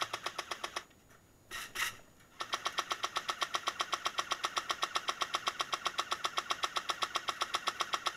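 Airsoft M60 firing full-auto, an even rapid clatter of about nine shots a second. A short burst ends under a second in, two brief noises follow, then a long unbroken burst starts about two and a half seconds in.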